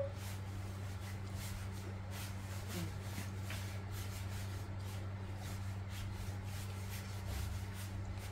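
Baby monkey sucking milk from a feeding bottle: faint irregular clicks over a steady low hum, with a short squeak right at the start.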